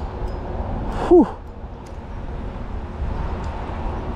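A steady low rumble, broken about a second in by a man's short, loud vocal sound that falls in pitch, like a brief grunt or exclamation, with a few faint ticks later on.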